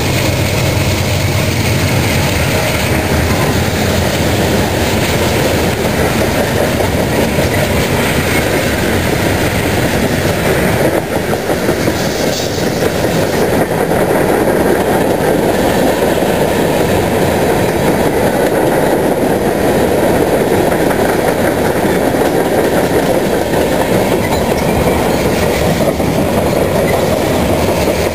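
Freight train passing at close range: the trailing Union Pacific diesel locomotives go by with a deeper low-pitched sound for the first couple of seconds, then a long string of freight cars (tank cars, covered hoppers, gondolas) rolls past with a loud, steady noise of wheels on rail.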